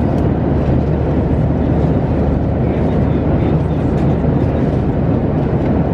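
Steady cabin noise of a Boeing 737-700 in flight: an even, low rushing drone of engines and airflow heard from inside the economy cabin.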